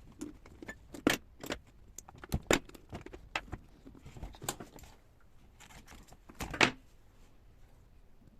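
Irregular metallic clicks, clinks and taps of hand tools and small parts being handled while the carburetor is fitted back onto a Husqvarna 61 chainsaw. The loudest knocks come about a second in, around two and a half seconds, and near six and a half seconds.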